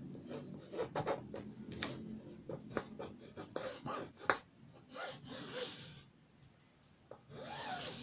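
Pencil scratching as it traces around a paper pattern onto lining fabric: irregular short strokes and light taps, a brief pause about six seconds in, then more scratching near the end.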